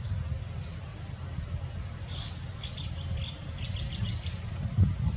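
Small birds chirping in short high calls, a few early and a quick run of several in the middle, over a steady low outdoor rumble. A dull thump near the end.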